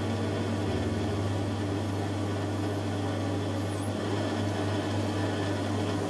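Metal lathe running with a steady motor hum as its spindle turns a brass rod and a tailstock-mounted drill bores into its end.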